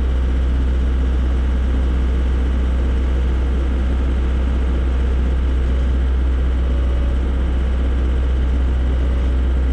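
Volvo BL70 backhoe's diesel engine idling steadily, a constant low hum.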